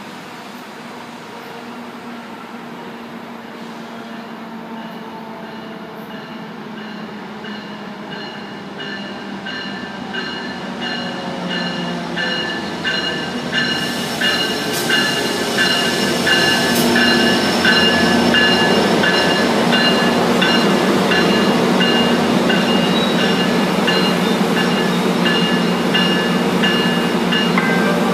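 Amtrak F59PHI diesel locomotive pulling a passenger train into the station. Its engine hum and the rumble of the train grow louder over the first half and then hold steady as it draws alongside and slows. A bell rings over and over from about a third of the way in until shortly before the end.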